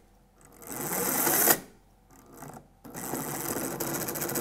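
Homemade filament puller's motor and gearbox running in spurts: a run that builds up and cuts off about one and a half seconds in, then a steady, fast mechanical rattle from a little under three seconds in. It is the sound of a gearbox that the maker found was not aligned.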